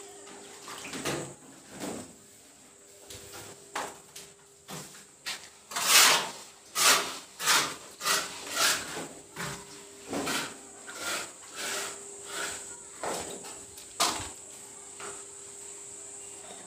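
A run of irregular scuffs and knocks, about two a second and loudest about six seconds in, over the steady high drone of insects.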